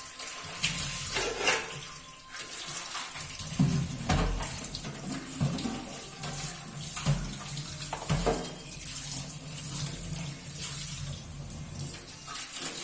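Water running from a tap while things are washed under it, with a few sharp knocks and clatters of items being handled.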